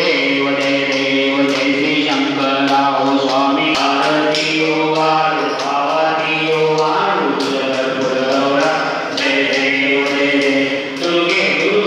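Aarti devotional song sung through a microphone, with voices joining in and long held notes that step from pitch to pitch. Sharp clicks keep a steady beat of about two a second.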